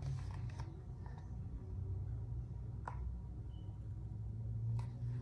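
Quiet room tone: a steady low hum with two faint short clicks, about three seconds in and near the end.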